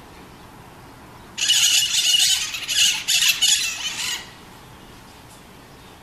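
Green parakeet (maritaca) giving a string of about four harsh, screeching squawks, starting just over a second in and lasting about three seconds.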